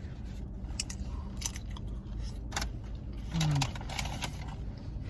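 Close-up eating sounds: chewing and crunching with scattered sharp clicks, over a steady low hum.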